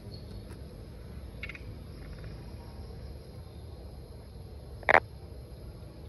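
A frog gives one short, loud call about a second before the end, after two soft, brief pulsed calls earlier on. Behind it runs a faint, steady insect trill.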